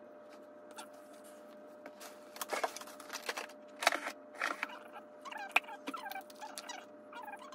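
Rustling and clicking as a small packet is handled, followed by a run of short squeaks that fall in pitch, over a steady faint hum.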